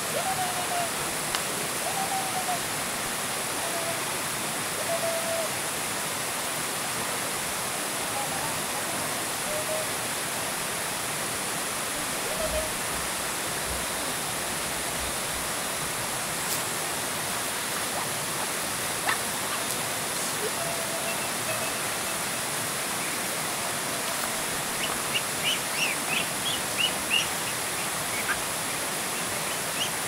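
Steady rush of running water, with a few short calls over it and a quick run of high chirps about 25 seconds in.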